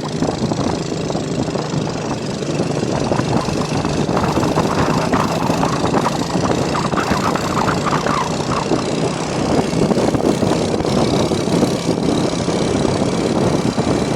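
A vehicle on the road, its engine and road noise mixed with a loud, steady rush of wind on the microphone.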